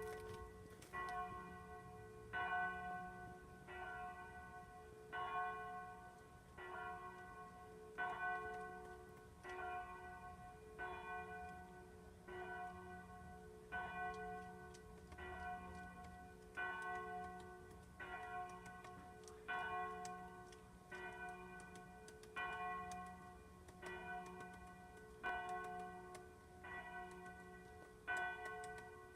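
A bell ringing with even strokes, about one every second and a half, each stroke ringing on over a steady low hum.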